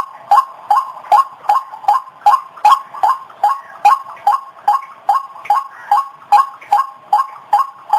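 White-breasted waterhen calling: a steady, even run of short harsh notes, about two and a half a second.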